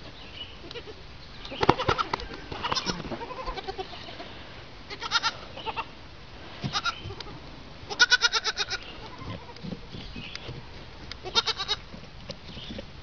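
Goat kids bleating: about six short, quavering bleats spaced a second or more apart, the longest and loudest about eight seconds in.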